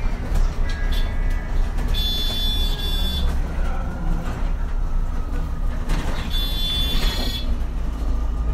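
MAN Lion's City Hybrid city bus running, heard from beside its front door: a steady low drone with a faint whine slowly dropping in pitch. Twice, a high-pitched tone sounds for about a second.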